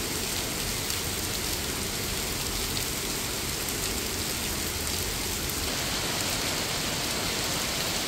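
Steady, even hiss of falling water, with no pauses or separate drops standing out.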